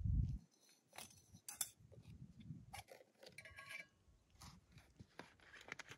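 Scattered small clicks, ticks and clinks of a backpacking stove and cookpot being handled and set up, with a dull low thump at the very start.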